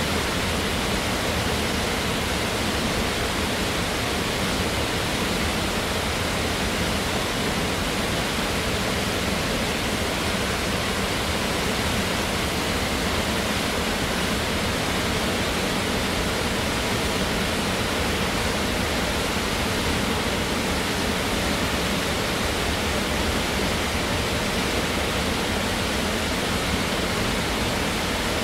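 Water wall fountain: many thin streams of water falling down a wall and splashing into a basin, a steady, unbroken rushing.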